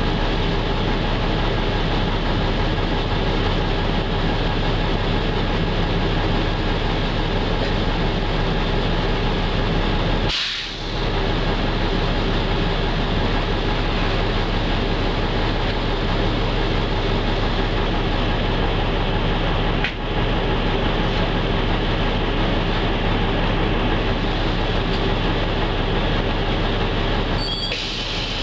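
Steady interior noise of a moving city bus: running gear and road noise with a constant low drivetrain hum. The sound briefly dips twice, about a third and two-thirds of the way through.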